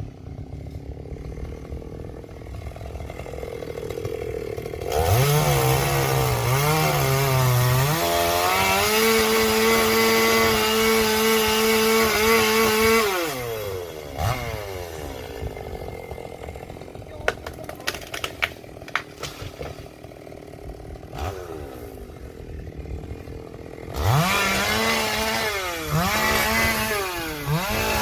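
Two-stroke gasoline chainsaw idling, then revved to full speed for about eight seconds, its pitch wavering at first and then holding steady before it winds back down to idle. A few sharp clicks or cracks come during the idle, and near the end the throttle is blipped up and down several times.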